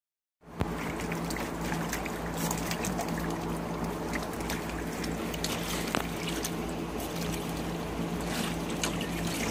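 Shallow water splashing and sloshing as a small dog's paws churn it in a plastic kiddie pool, with scattered small splashes over a steady low hum.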